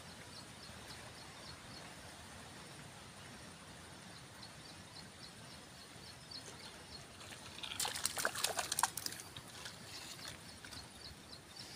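A faint high chirp repeats over a low outdoor hiss. About eight seconds in comes a short burst of splashing as a hooked fish thrashes at the water's surface while it is pulled out on the line.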